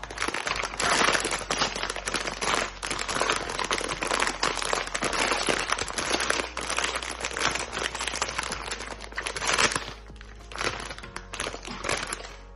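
Plastic and foil packaging crinkling and crackling as a blind box is unwrapped by hand; dense and irregular, easing off about ten seconds in.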